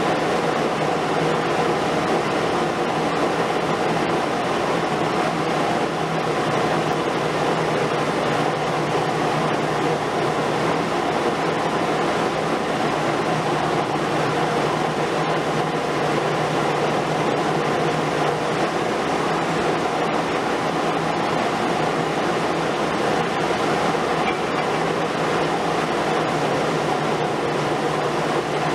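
Diesel engine and hydraulics of a Liebherr R 950 Demolition long-front excavator working steadily under load, a continuous even drone with no distinct bangs.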